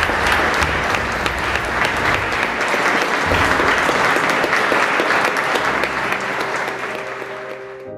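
Audience applauding: a dense patter of many hands clapping, with background music underneath. The applause fades over the last couple of seconds and then cuts off abruptly.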